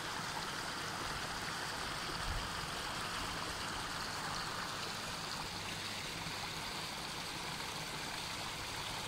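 Steady rush of running water, an even hiss with no breaks or distinct splashes.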